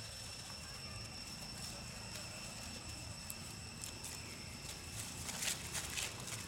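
Dry fallen leaves crackling and rustling under macaques as they move and scuffle, with a louder burst of crackling about five seconds in, over a steady high-pitched whine.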